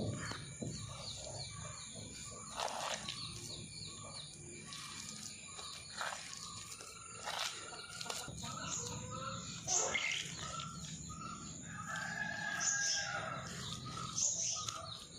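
Ground masala paste being scraped by hand out of a stone mortar, with a few sharp knocks and scrapes, the loudest about two-thirds of the way through. Birds chirp in the background throughout.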